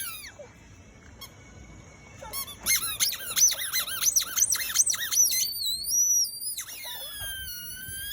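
A noise-making toy ball squeaking: a quick run of high chirps, several a second, starting about two and a half seconds in, then longer high tones that glide down and back up.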